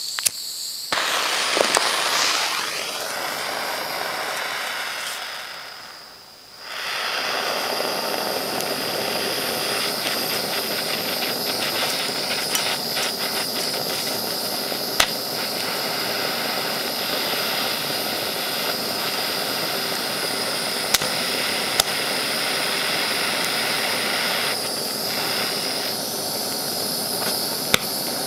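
A mini blowtorch on a gas canister burning with a steady hissing rush. It dies away about six seconds in and comes back a second later. A few sharp clicks stand out over the hiss.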